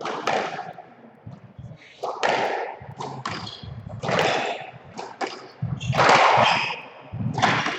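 Squash rally: the rubber ball being struck by rackets and hitting the court walls, a sharp crack every second or two, each ringing on briefly in the enclosed court.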